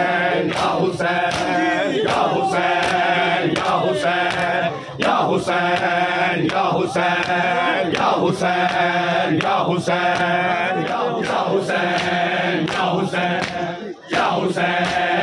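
Men chanting a Shia mourning lament (noha) together in repeated sung phrases, over a steady beat of hands slapping bare chests (matam) about twice a second.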